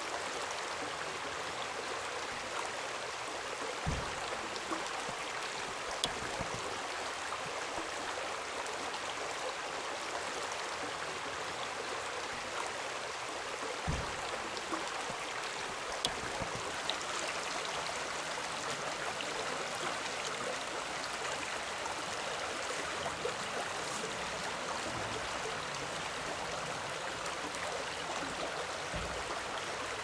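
Shallow rocky mountain stream running over and between stones: a steady rush of water, with a couple of soft low knocks.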